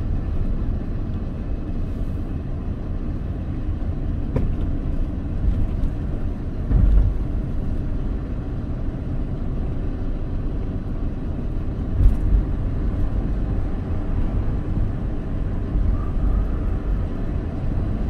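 A car driving along a paved road, with a steady low rumble of road and engine noise. It swells briefly into two louder low surges, about seven and twelve seconds in.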